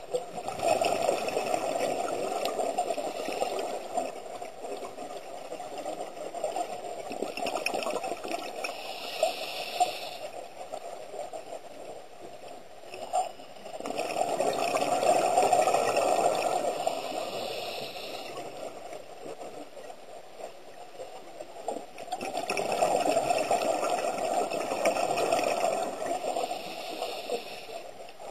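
Scuba diver's exhaled bubbles from a regulator, heard underwater: three long bubbling swells that rise and fade, with softer hissing between them.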